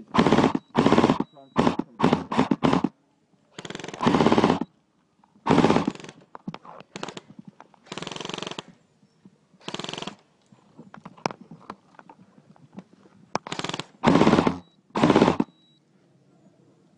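M4-style airsoft rifles firing in short full-auto bursts, about a dozen in all, each a fraction of a second to about a second long. There is a quick string of short bursts in the first three seconds and two loud bursts near the end.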